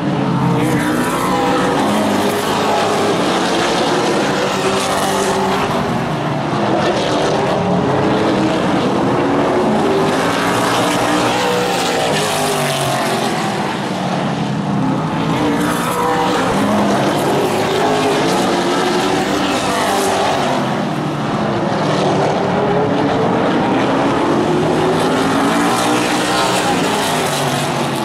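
A field of super late model stock cars racing on a short oval, their V8 engines running hard. Engine pitch keeps climbing and dropping in overlapping waves as the cars lift for the turns and accelerate onto the straights, with packs going by every few seconds.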